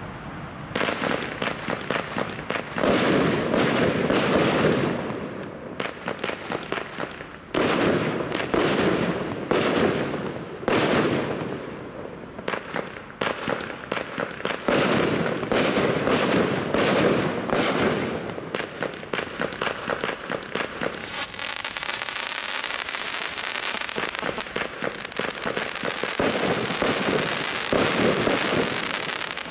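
Stealth Fireworks 'Lavish' 25-shot barrage cake firing in volleys of five: repeated launches and loud bursting reports. From about two-thirds of the way in, a continuous crackling from the crackling silver tails and glitter runs under the bangs.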